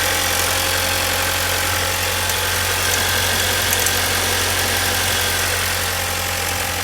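Car engine idling steadily with its accessory belt drive running, the noise that the owner suspects comes from a bad belt tensioner.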